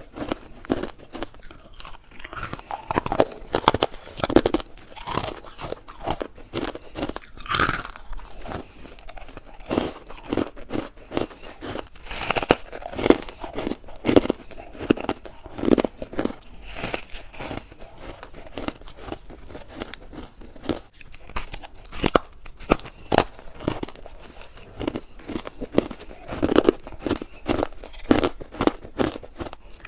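Close-up biting and chewing of crunchy freezer frost edges, a dense run of irregular sharp crunches and crackles.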